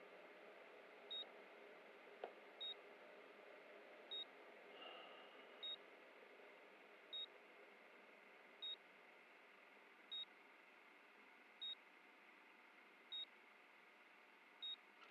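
Camcorder's low-battery warning beeping: a short, high beep repeating evenly about every second and a half, over a faint steady hiss.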